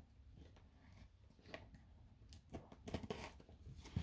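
Faint handling noises: a few light clicks and rustles scattered through, more of them in the second half, in a small room.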